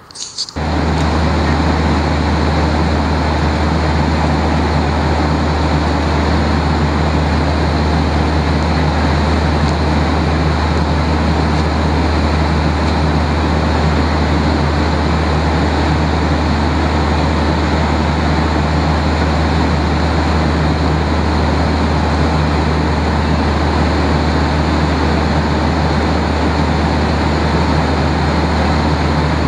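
Airliner cabin noise: a loud, steady drone with a strong low hum, starting abruptly about half a second in.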